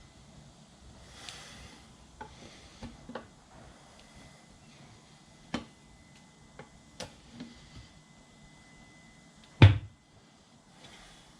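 Scattered clicks and knocks of hand work on a motorcycle wheel and tire, with one loud knock near the end.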